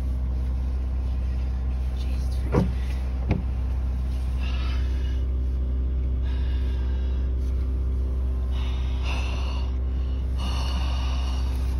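Inside a moving Toyota car: a steady low rumble of engine and road noise while driving, with two short sharp clicks about two and a half and three and a half seconds in.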